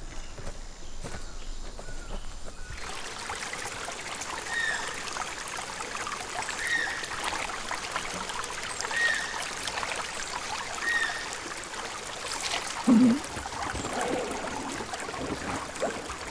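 Shallow stream trickling over rocks, coming in about three seconds in, with a bird giving a short chirp about every two seconds. A brief low sound stands out near the end.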